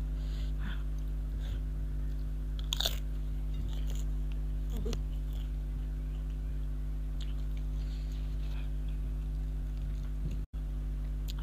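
Close-miked eating: chewing with a sharp crunchy bite about three seconds in and a softer one near five seconds, over a steady electrical hum. The sound cuts out for an instant near the end.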